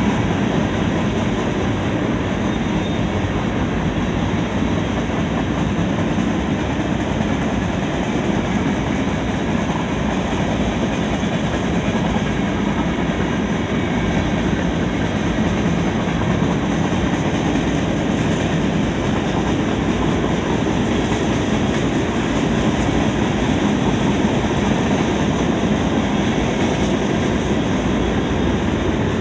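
Empty centerbeam lumber flatcars of a freight train rolling past, a steady rumble of steel wheels on the rails.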